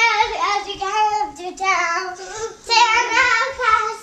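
A young girl singing a children's song in three short phrases.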